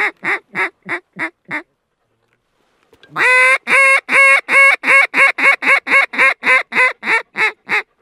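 Hand-blown waterfowl call: a run of calls that tails off and fades in the first second and a half, then after a short pause a long, loud, evenly spaced series of about fifteen calls, about three a second.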